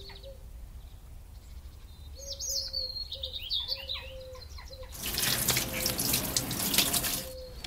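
Kitchen tap running water over a stainless steel sink as a rosemary sprig is rinsed under it, starting about five seconds in and shutting off shortly before the end. A few faint bird chirps come a couple of seconds before the water.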